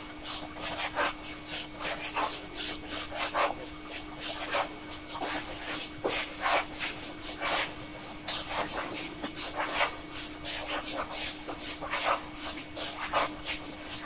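Fountain pen's steel nib scratching across paper in quick, short hatching strokes, several a second and unevenly spaced.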